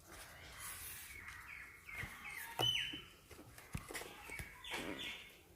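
Birds chirping, a quick run of short falling chirps about two seconds in, with a few faint clicks.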